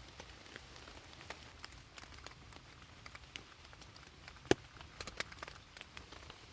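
Scattered raindrops ticking and tapping at irregular intervals, with one louder tap about four and a half seconds in.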